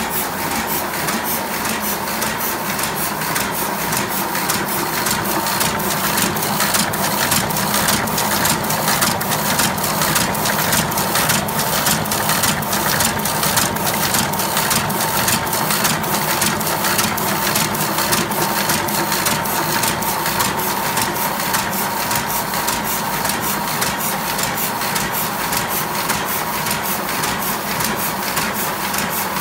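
Heidelberg GTO 46 sheet-fed offset press running at speed: a steady, rapid, even clatter of clicks over a constant high hum.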